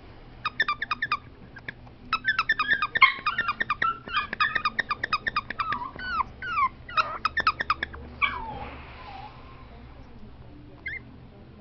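Squeaky plush dog toy squeezed by hand in quick runs of short high squeaks, several a second, some sliding down in pitch. The squeaking stops about eight seconds in.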